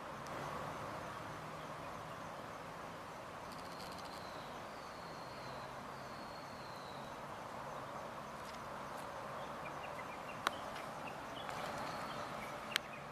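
Steady outdoor background hiss, with three faint, high, slightly falling calls in the middle and two sharp clicks near the end.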